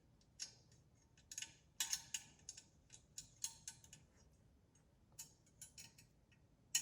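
Allen wrench tightening a corner screw on the laser engraver's frame: a run of light, irregular metallic clicks and ticks as the key turns and is reset, with one sharper click near the end.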